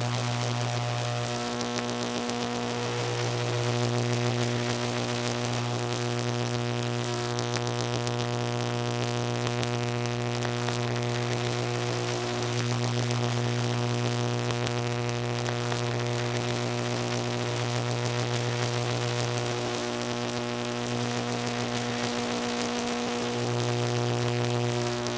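Electrical buzz: a steady low hum with a ladder of higher overtones and a crackly hiss above it, swelling slightly in loudness now and then.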